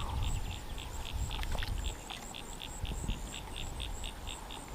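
Frogs calling in a steady pulsed rhythm, about five short pulses a second, with a fainter, higher chirping call repeating alongside.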